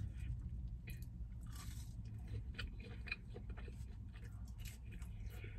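A person chewing and biting fast food, with soft clicks and a few short crunches, over a steady low hum.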